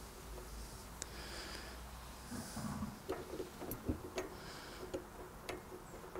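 Light, irregular metallic clicks and taps of bicycle cassette sprockets and spacers being handled and slid onto a freehub body, with a few short scraping rubs between them.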